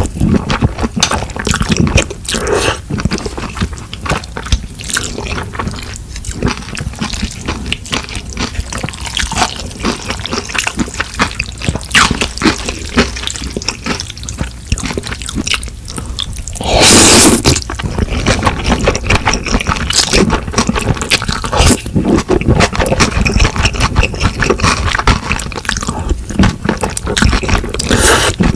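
Close-miked eating sounds: wet chewing with many small irregular clicks and smacks. About seventeen seconds in there is one louder noisy burst lasting under a second.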